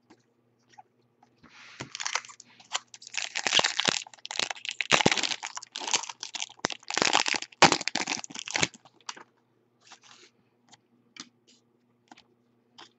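Foil wrapper of a Bowman Chrome Jumbo baseball card pack being torn open and crinkled, a dense crackle from about a second and a half in until about nine seconds. It is followed by a few faint clicks of cards being handled.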